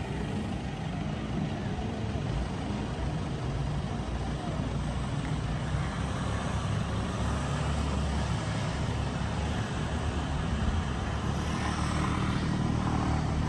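An engine running steadily under way: a low, even drone with a haze of rumble and no change in speed.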